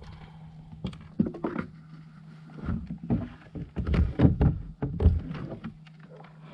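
Irregular knocks, thumps and clatter in a kayak as a freshly caught small bass is handled and measured, over a low steady hum.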